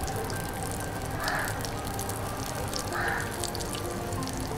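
Rawa-coated fish shallow-frying in hot oil, a steady sizzle with fine crackling.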